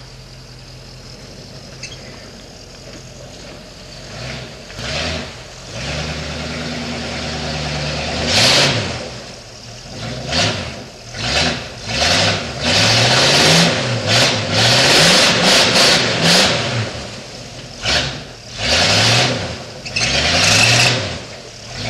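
A Chevy short-bed pickup's engine revved and let off again and again as the truck climbs a muddy trail, the engine note sweeping up and down about once a second. It gets louder as the truck comes closer, from about eight seconds in.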